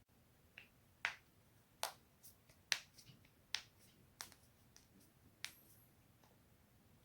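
Spinal joints cracking: about ten separate sharp pops at irregular intervals, the loudest about three seconds in.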